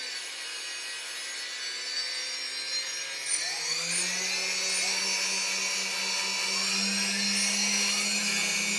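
Quadcopter brushless motors, driven by HobbyKing BlueSeries 30A ESCs on SimonK firmware, whining as the throttle is raised. Separate motor tones climb in pitch at different moments, from about three and a half seconds in and again a little later, then hold steady. The motors are starting unevenly under the Naza flight controller.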